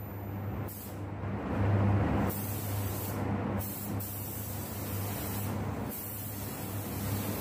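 Air-fed paint spray gun hissing as it sprays clear coat onto a car body panel. The hiss is loudest about two seconds in and dips briefly a few times, over a steady low hum.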